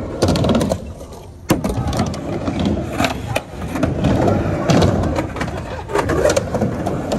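Skateboard rolling on a halfpipe ramp, its wheels rumbling over the surface, with a sharp clack about a second and a half in as a board lands from an air, and a few lighter knocks after it.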